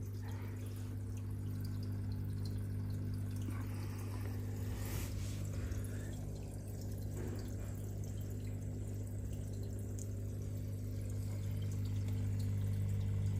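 Steady electric hum of aquarium equipment such as a pump or filter, with water trickling and dripping in the tank.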